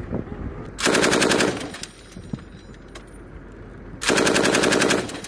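Two short bursts of automatic fire from an M240 7.62 mm machine gun: one about a second in, a second, slightly longer burst about a second before the end.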